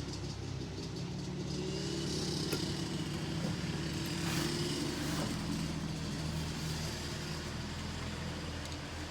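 An engine running steadily, its hum swelling for a few seconds in the middle, then settling again.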